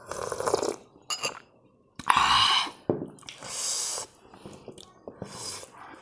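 Several noisy slurping sips of soup from a spoon, close to a clip-on microphone, the loudest about two seconds in, with quieter mouth sounds between.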